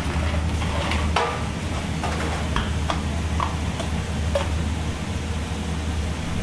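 Pieces of food sizzling in a restaurant deep fryer, with a few short metal clinks from utensils against the wire draining rack. Under it runs a steady low hum of kitchen equipment.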